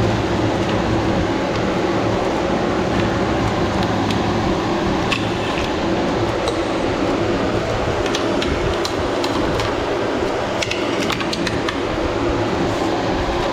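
Electric fan running with a steady hum, and light clicks and taps of plastic parts and wiring being handled during the middle stretch.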